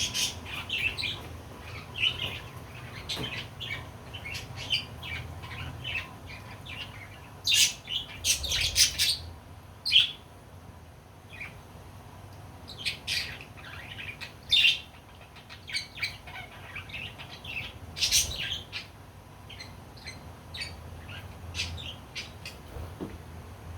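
Budgerigars chirping: a steady run of short, high chirps and chatter, with several louder bursts of calls along the way.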